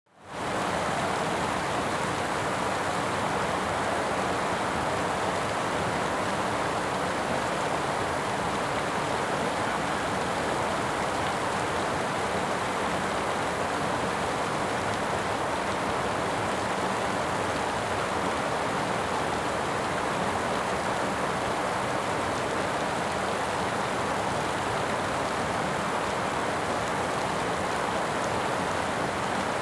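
Mallyan Spout waterfall falling down a rock face and splashing onto boulders, a steady rush of water with no change in level.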